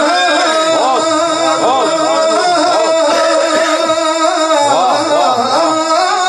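A man singing a wavering, ornamented melody in long phrases over a steady held drone.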